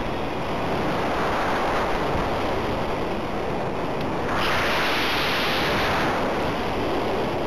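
Airflow rushing over the onboard camera of a radio-controlled model aircraft in flight: a steady wind hiss that grows louder for about two seconds, starting a little past the middle.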